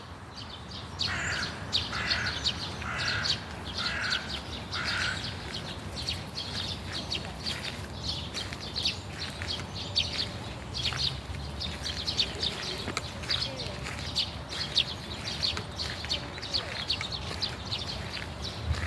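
Several songbirds singing together in a morning chorus: many short high chirps and trills overlap throughout. In the first few seconds a lower note repeats five times, evenly spaced. A steady low rumble runs underneath.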